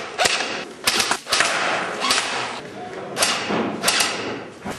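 Airsoft rifles firing: about eight sharp cracks at irregular intervals, some trailing a short echo in the bare brick rooms.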